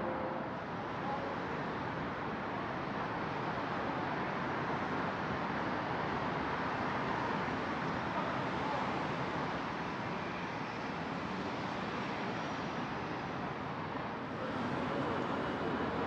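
Steady city traffic noise: an even wash of passing cars with no distinct events standing out.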